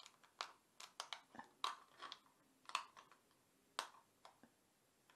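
Thin aluminium drinks-can walls crinkling in a series of irregular sharp clicks as the crimped top half of a can is pressed into the bottom half by hand.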